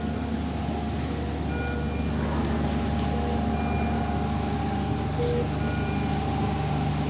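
Short electronic beeps from ICU bedside medical equipment: a high beep about every two seconds and lower short beeps between them, over a steady machine hum.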